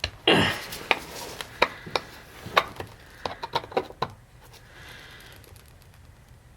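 Soft-blow hammer tapping the end of a screwdriver seated in a damaged slotted wood screw in a rusty hinge, to loosen the stuck screw. About a dozen sharp, uneven taps come over the first four seconds, with a louder knock just after the start, then the tapping stops.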